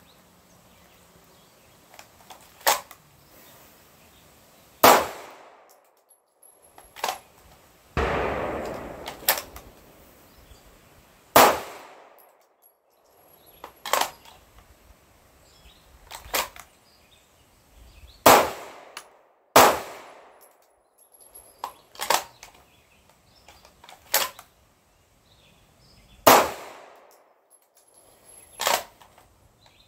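Single pistol shots from a SIG P226, fired one at a time about every two seconds, some much louder than others, each sharp crack followed by a short echo.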